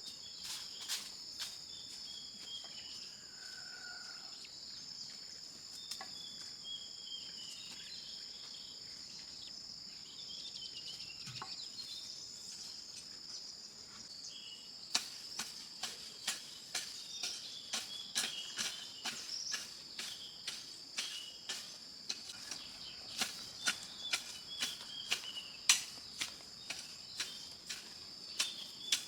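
Steady high-pitched insect chorus of crickets, with short descending chirps now and then. From about halfway, a rapid run of sharp knocks, two or three a second, comes over it and is the loudest sound.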